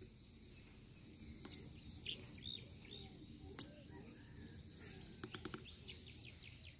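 Faint insect calls: a steady, evenly pulsing high trill over a continuous very high buzz, with a few short bird-like chirps and a quick run of four clicks about five seconds in.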